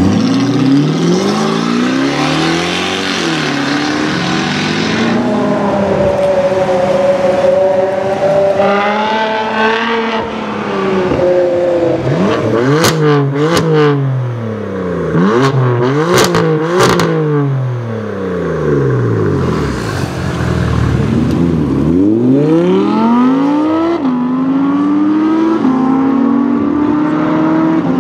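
Performance-car engines revving hard in turn, the pitch swinging up and down. In the middle come a run of sharp exhaust pops and cracks. Near the end a car accelerates up through the gears, its note climbing and dropping back at each shift.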